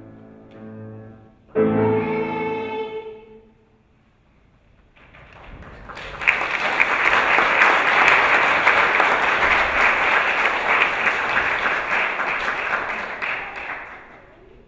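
Music ends on a held final chord that dies away within a few seconds. After a brief pause, audience applause builds, runs for about eight seconds, and fades near the end.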